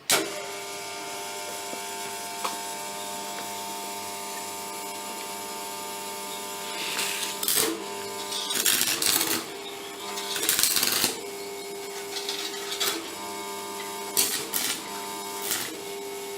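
Arc welding: a welding machine's steady electric hum, broken by several irregular bursts of crackling from the arc in the second half.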